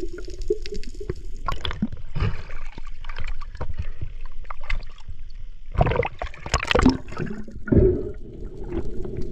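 Water gurgling and sloshing against the camera, with irregular clicks and knocks. The loudest surges come about six to seven seconds in.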